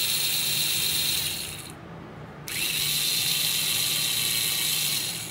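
Small yellow plastic DC gear motor running with a wheel on its shaft: a steady high-pitched whirr of the motor and plastic gears. It winds down about a second and a half in, starts again suddenly about a second later, and stops at the end.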